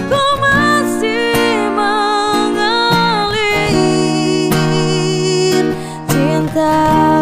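Background song: a sung melody gliding between held notes over plucked guitar accompaniment.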